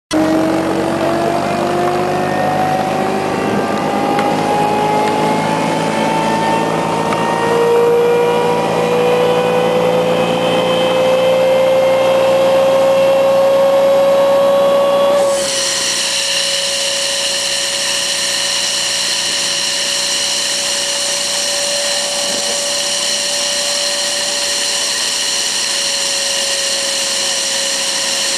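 Bark mulch blower running, its fan whine rising slowly in pitch. About halfway through the sound changes abruptly to a steady whine with a shrill edge.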